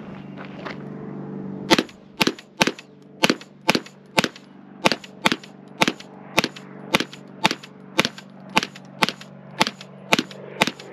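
Pistol fire, 9mm, in a rapid string of about eighteen shots, roughly two a second, starting just under two seconds in, over a steady low hum.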